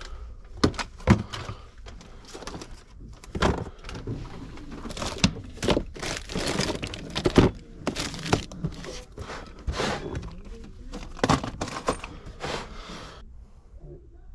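Hands rummaging through a plastic storage bin of hardware and packaged parts: irregular knocks and clatter with crinkling of packaging, stopping about a second before the end.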